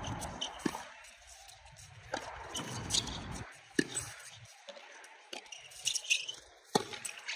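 Tennis balls struck in a distant rally: a sharp pock of ball on racket strings or court about every second or so.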